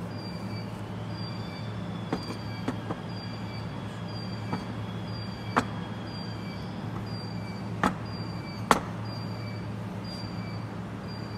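Stainless steel pieces knocking and clinking sharply several times as they are handled on a wooden workbench, the loudest knocks about eight and nine seconds in. Underneath is a steady low machine hum and a faint short high chirp repeating about every two-thirds of a second.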